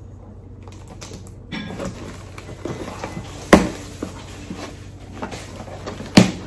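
Scissors slitting the packing tape on a cardboard shipping box, then the cardboard flaps being scraped and pulled open. Two sharp knocks stand out, one about three and a half seconds in and one near the end.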